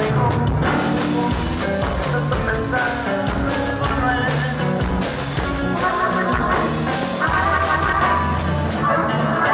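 Live norteño band playing: a diatonic button accordion carries the melody over strummed guitar, bass and drums.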